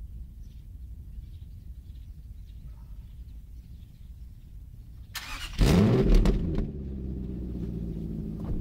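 Infiniti FX45's 4.5-litre V8 starting about five seconds in: it catches with a short rev flare, then settles into a steady idle through the exhaust.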